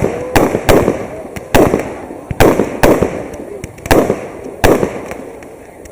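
Fireworks bursting overhead: about eight sharp bangs at uneven intervals, each trailed by a rumbling echo. The last bang comes about three-quarters of the way through, and its echo dies away after it.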